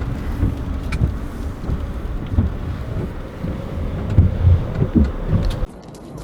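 Mercedes Sprinter camper van running, a low rumble with uneven gusts of wind on the microphone; it cuts off suddenly near the end.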